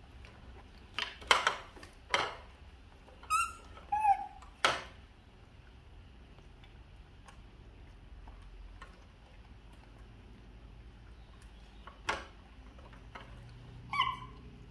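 Baby monkeys giving a few short squeaky calls, one falling in pitch, about three and four seconds in and again near the end. Sharp knocks and clatters sound among them, several in the first five seconds and one at about twelve seconds.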